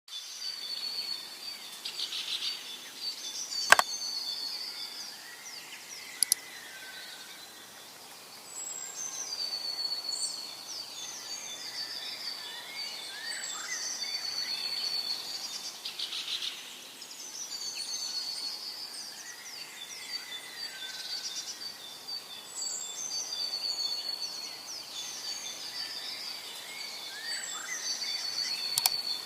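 Several birds chirping and singing in repeated short phrases and trills over a steady outdoor hiss, with a sharp click about four seconds in and a fainter one a couple of seconds later.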